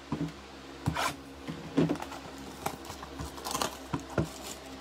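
Trading cards in rigid clear plastic holders being handled and set down on a tabletop: a string of light, irregular clicks and plastic taps, the loudest a little under two seconds in.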